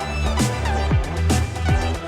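Background music: an upbeat electronic track with a steady beat.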